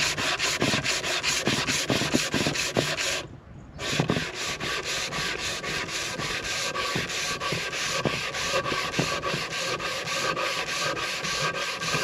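Palm sander with 220-grit paper sanding a wooden board along the grain, a steady rasping with a fast regular pulse. It stops briefly a little over three seconds in, then starts again and runs on.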